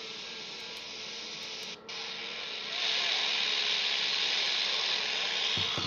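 Steady hiss of receiver static from a Quansheng UV-K5 handheld radio's speaker with the squelch open and no station coming through. It cuts out for a moment about two seconds in, then comes back louder.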